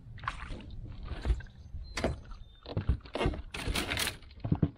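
A bass being played to the side of an aluminum bass boat and landed by hand: irregular knocks, rattles and short splashy bursts, with a few dull thumps. The strongest burst comes a little under four seconds in.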